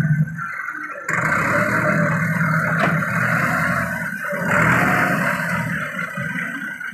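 Tractor engine running under load while its front-end loader lifts and tips a bucket of chopped wheat straw into a trailer. The engine gets suddenly louder about a second in, and again a little past the middle.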